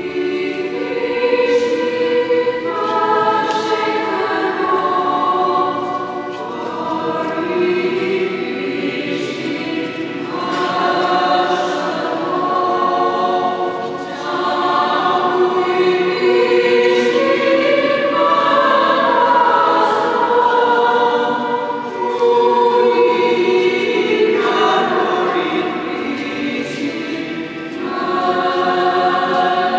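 Church choir singing a hymn in several voice parts, in phrases of long held notes with short breaths between them.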